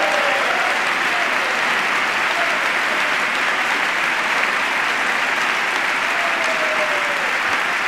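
A large crowd applauding steadily, a sustained ovation, with a few faint voices in the mix.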